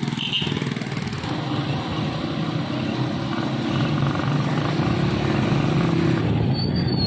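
Small motorcycle and auto-rickshaw engines running as they move slowly past, getting a little louder about four seconds in.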